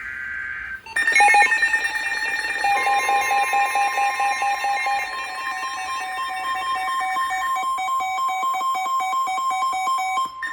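Emergency alert tones from a weather radio: a buzzing data burst ends about a second in, then a rapidly pulsing, ringing alarm sounds. After about two and a half seconds a long steady single-pitch warning tone joins it.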